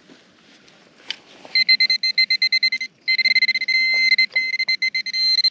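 Metal detector giving a rapid, high-pitched electronic beeping from about a second and a half in, with a short break near the middle: the signal for metal in the soil.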